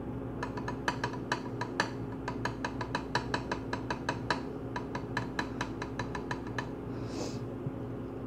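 Water being poured slowly into a steam iron's small fill hole, with air bubbles escaping from the reservoir in a rapid, irregular string of small ringing glugs and pops. The glugging stops about six and a half seconds in, and a short hiss follows.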